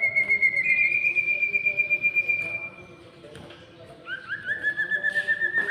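Two sirtu songbirds (common iora, cipoh) singing in turn. One long, fast-trilled whistle lasts about three seconds. After a short pause, a slightly lower trill answers, opening with a few rising notes.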